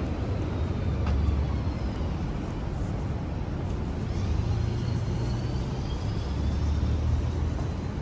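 City road traffic passing, a steady low rumble of engines and tyres that swells twice as vehicles go by, with a faint higher whine drifting above it.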